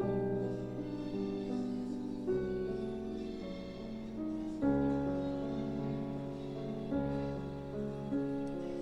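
Background piano music, slow and sustained, moving to a new chord roughly every two seconds.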